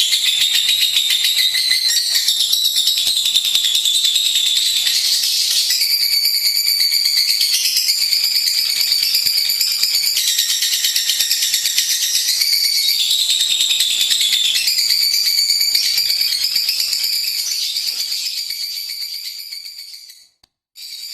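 Lovebird singing a long, unbroken run of rapid, high-pitched chattering trills. It fades away near the end, breaks off for a moment, then starts up again.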